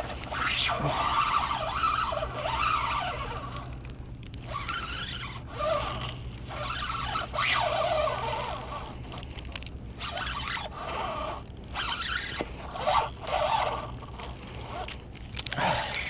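Fishing reel drag slipping in irregular runs, buzzing and squealing in bursts with short pauses, as a large fish pulls line against the bent rod.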